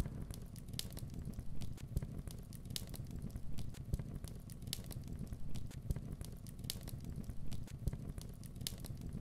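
Continuous crackling: irregular sharp pops and snaps over a steady low rumble.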